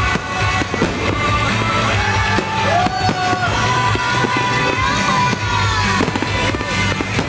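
Fireworks shells bursting and popping in quick, irregular succession, over loud music with a gliding melody and a steady bass.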